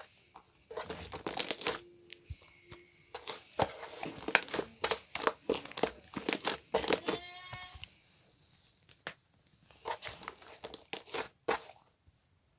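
Crinkling and rustling of something being handled, in irregular bursts of crackle and clicks, with a short squeak about seven seconds in.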